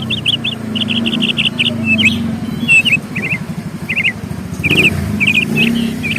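Small songbirds chirping in quick runs of short, high notes, repeated throughout, over a low, steady hum.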